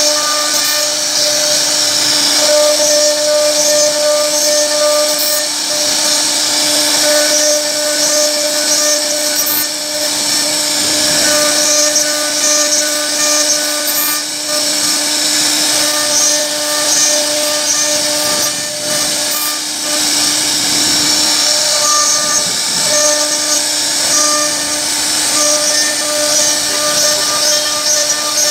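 CNC router spindle running with a steady whine as its bit carves relief patterns into a wooden door panel, with the rough, hissing noise of the cut over it. The level dips briefly here and there as the tool moves along its path.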